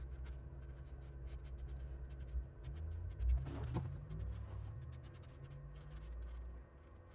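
Faint scratching strokes of a black marker tracing an outline on a cedar board, over a steady low hum.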